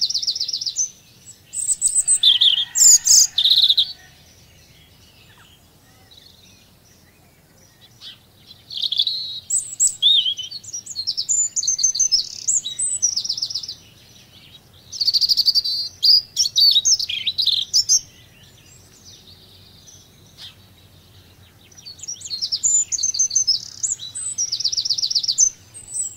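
Small songbirds singing: phrases of quick high chirps and trills, coming in several bursts with pauses of a few seconds between them.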